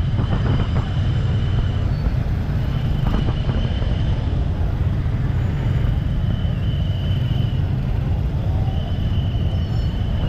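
Many motorbikes and scooters idling together in stopped traffic, a steady low engine rumble. A thin high steady tone comes and goes every few seconds over it.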